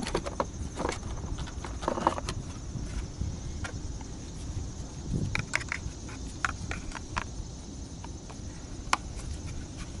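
Irregular plastic clicks and knocks from the engine-bay fuse box cover of a 2010 Hyundai Elantra being unlatched, lifted off and handled.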